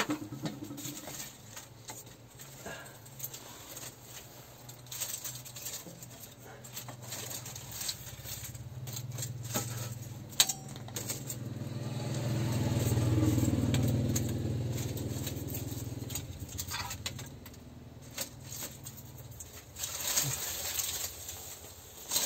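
Scattered snaps and clicks of dry twigs being broken and pushed into a small wood cooking fire. A vehicle engine passes by, growing louder to a peak about halfway through and then fading away.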